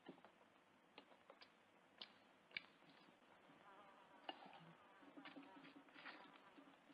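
Faint eating sounds from a metal frying pan: a few small clicks, then soft scraping as a piece of bread is wiped around the pan.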